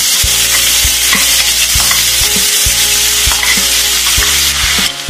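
Finely chopped onions sizzling loudly in hot oil in a kadai, stirred with a steel ladle that knocks and scrapes against the pan about twice a second. The sizzle cuts off sharply near the end.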